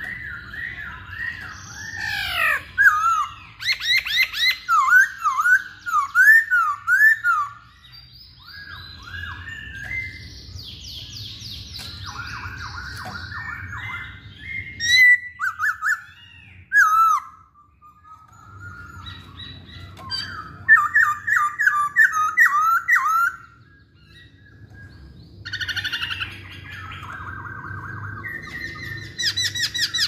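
Black-throated laughingthrush singing a loud, varied song. It comes in phrases of quickly repeated sweeping whistled notes and fast chattering runs, broken by short pauses.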